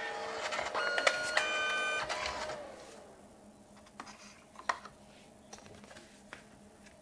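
Canon Selphy CP1300 dye-sublimation photo printer's motor whining steadily as it runs the print through, then winding down with a falling pitch about two and a half seconds in. A few short clicks and taps follow as the finished print is lifted from the tray.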